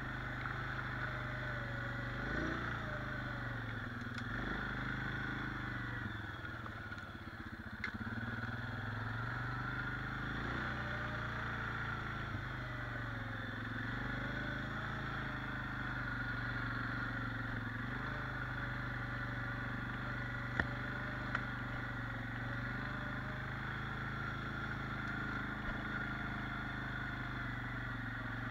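A 4x4 quad's engine running as it is ridden, its pitch rising and falling a few times with the throttle and easing off briefly about a quarter of the way in. Two short sharp knocks come about two-thirds of the way through.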